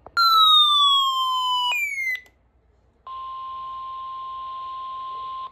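A loud electronic tone that glides downward for about two seconds, dropping in one step partway through. After a short gap comes a steady 1050 Hz weather-radio warning alarm tone over faint hiss, cut off abruptly at the end, which is the attention signal that introduces the next weather warning.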